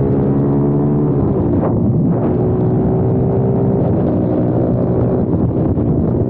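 Kayo TT 140 pit bike's single-cylinder four-stroke engine running hard, heard from on the bike. About a second in the engine note drops sharply, then climbs back and holds steady at high revs.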